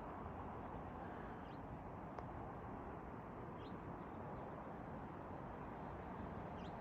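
Quiet outdoor background: a steady low hum of ambient noise, with two or three faint short chirps.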